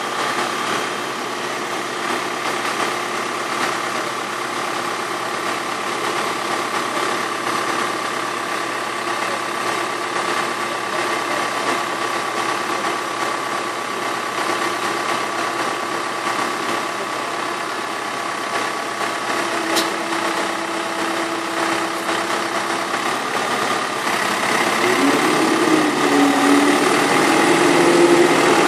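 Tractor diesel engine idling steadily, a continuous hum with a fixed pitch. Near the end it grows louder and its pitch shifts up and down.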